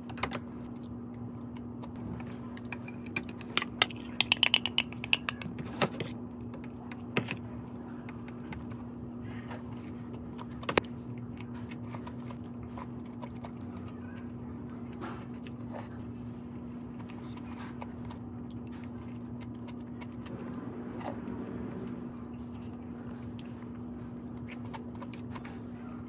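A steady low hum with one held tone, and a quick run of light clicks and taps about three to six seconds in, then a single sharper click and a few faint ticks.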